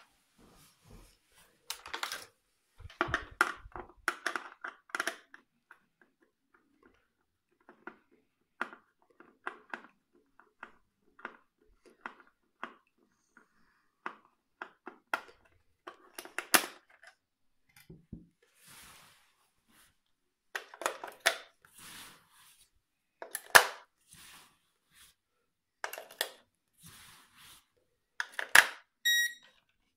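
Handling of a toy drone and its hard plastic radio controller: irregular clicks, knocks and rustling of plastic packaging, with one sharp knock about two-thirds of the way in. AA batteries are fitted into the controller's battery compartment, and near the end the controller gives a short electronic beep as it is switched on.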